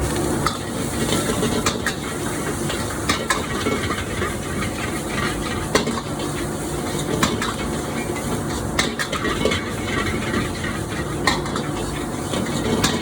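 Food sizzling in a hot pan while a spatula stirs it, with frequent sharp clicks and scrapes of the utensil against the pan.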